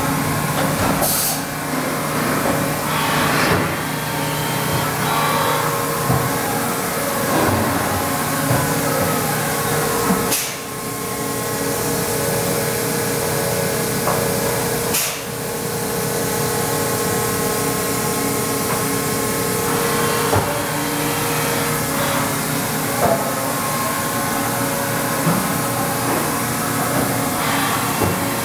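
Haas VF-4 CNC vertical machining center with a trunnion rotary table running in its enclosure: a steady machine hum and hiss, with a steady tone that sets in about ten seconds in and stops about twenty seconds in, and a few sharp clicks and knocks along the way.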